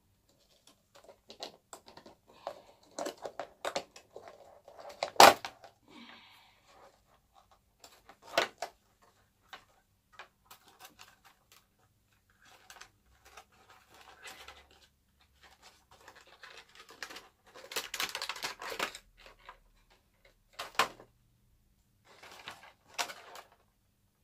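Stiff clear plastic clamshell packaging being pried open and handled: crackling and rustling with sharp clicks and snaps, the loudest about five seconds in, and a longer stretch of rustling about three-quarters of the way through.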